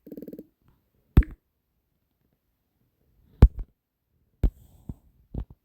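A few separate sharp clicks, about five spread over several seconds, after a brief buzz at the very start.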